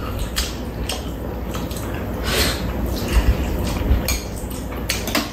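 Close-up eating sounds: wet chewing and slurping, with chopsticks and spoons clicking against bowls now and then, over a steady low rumble.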